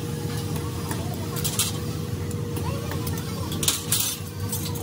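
A few sharp metallic clinks, one about a second and a half in and two close together near the end, over a steady low hum.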